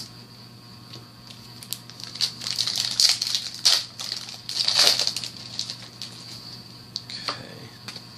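Foil trading-card booster pack being torn open and its wrapper crinkled, in several rustling bursts a couple of seconds in, over a faint steady hum.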